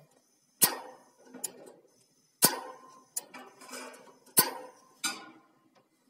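Gas fireplace's piezo igniter worked by hand: its spring-loaded hammer snaps sharply three times, about two seconds apart, with softer clicks in between. Each snap is the hammer striking to make the ignition spark.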